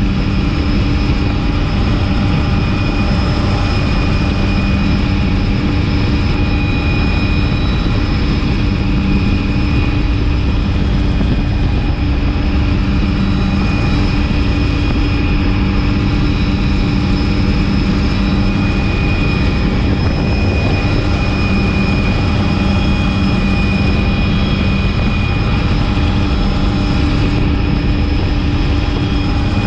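Helicopter's engine and rotors running steadily: a loud, even low rumble with several steady high-pitched whines over it, unchanged throughout.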